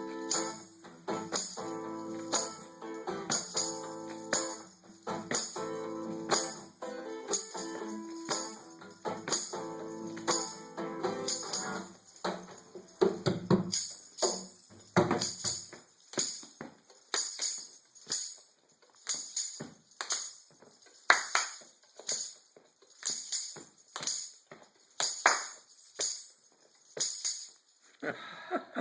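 Music: held instrument chords over a steady, jingling percussion beat. About halfway through, the chords fall away and the percussion beat carries on nearly alone.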